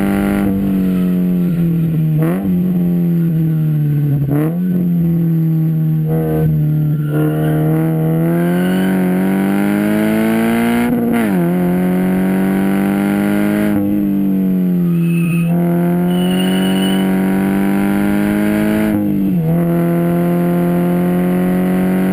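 2013 Scion FR-S's 2.0-litre flat-four boxer engine, breathing through a Nameless track exhaust with overpipe and downpipe, running hard under load on track. Its pitch climbs steadily and drops sharply at each shift or lift, about five times, with one long pull in the first half.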